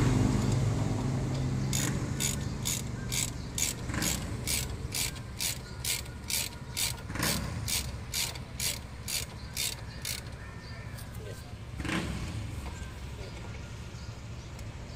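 Hand socket ratchet clicking in quick back-and-forth strokes, about three a second, as it turns a mounting bolt on a scooter's front brake caliper. The clicking stops about ten seconds in, with one knock a couple of seconds later. A low hum fades out in the first second or two.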